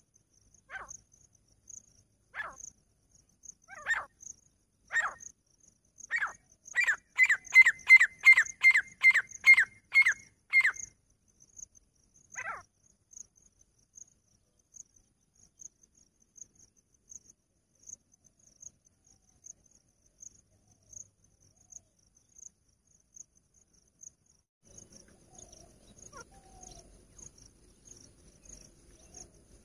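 Grey francolin calling: separate notes about a second apart speed up into a loud, fast run of about a dozen notes at roughly three a second, then one last note. Crickets chirp steadily and high throughout.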